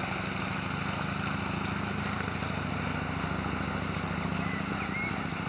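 A motor running steadily: a low, even hum under a light hiss.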